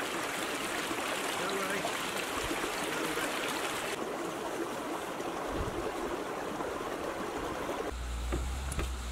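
Small mountain stream running over stones. About four seconds in it cuts hard to a quieter hiss, and near the end to a low steady hum.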